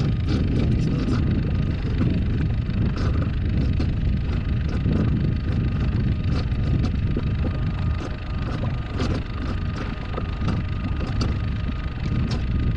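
Wind buffeting the microphone with a continuous low rumble, with scattered small ticks and water slaps on a small skiff at sea.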